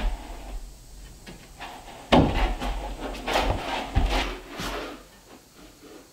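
Wooden knocks and scraping as a slab-wood trim board is shifted and pressed against the wall, with two sharp knocks about two and four seconds in.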